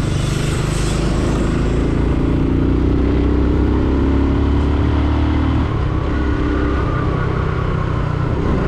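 Motorcycle engine running under way, its tone easing down for a few seconds and changing pitch about five and a half seconds in, as from a gear change, with wind rumble on the microphone.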